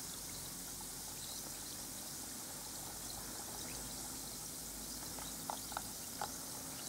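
Faint, steady fizzing of a Bikkura Tamago bath bomb dissolving in a basin of water. Near the end a hand dips into the water, with a few small splashes.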